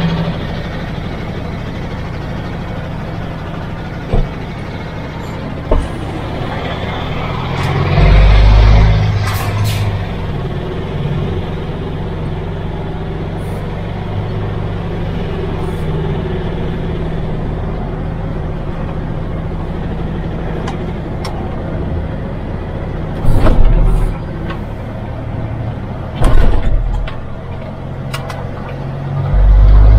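MAN TGX truck's diesel engine running steadily while the truck is driven, heard from inside the cab. A few short, louder low rumbles come and go, and there are a couple of sharp clicks.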